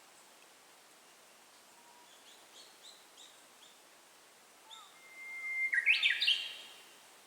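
Japanese bush warbler (uguisu) singing its hoo-hokekyo song once: a long steady whistle about five seconds in, then a quick, loud flourish of notes. A few faint short chirps come before it.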